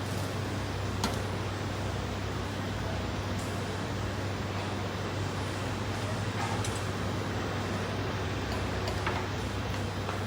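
Steady low hum under an even wash of background noise, with a few light clicks now and then.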